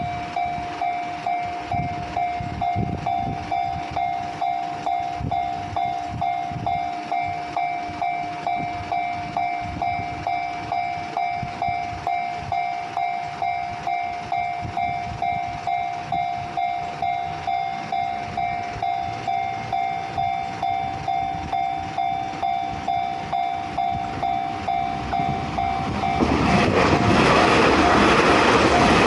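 Railway level-crossing warning bell ringing at an even rhythm, about two strokes a second. About 26 seconds in, a passing train's rushing noise rises loud over it.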